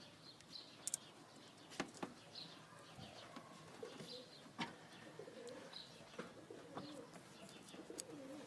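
Faint bird calls: short high chirps recurring every second or so, with some lower calls in between. A few sharp clicks sound about one, two and four and a half seconds in.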